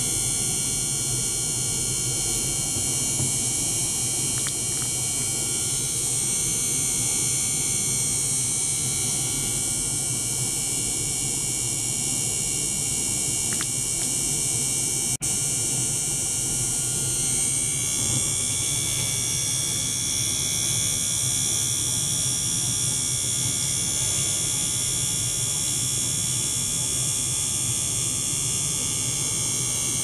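Small electric motor pump running with a steady hum and buzz while it circulates water through plastic tubing. The sound cuts out for an instant about halfway.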